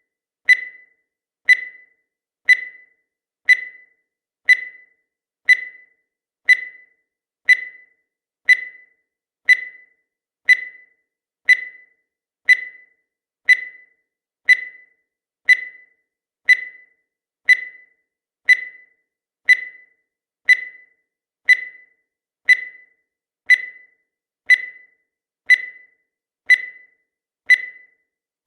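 Countdown timer sound effect: a short, high-pitched tick once a second, each one sharp at the start and dying away quickly.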